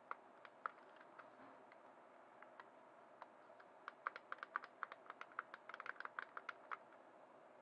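Small, light plastic clicks from a toy hovercraft's infrared remote-control transmitter as its sliders and switch are worked by hand: a few scattered clicks, then a quick run of them from about four to seven seconds in.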